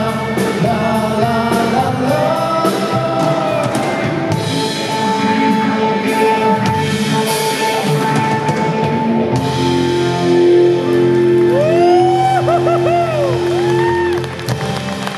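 Live rock band playing: a male lead vocal over electric guitar, electric keyboards and a drum kit, with long held notes in the second half.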